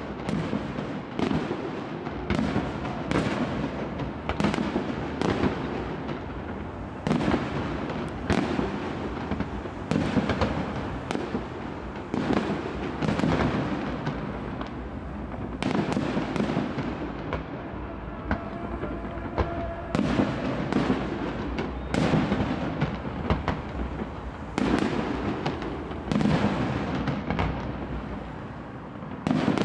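Aerial fireworks display: shells bursting one after another, sharp bangs about every second with echoing rumble between them.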